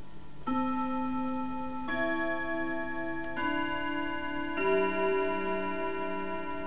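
Colonial Manufacturing Company grandfather clock playing its chime melody: four notes struck about every second and a half, each ringing on at a different pitch.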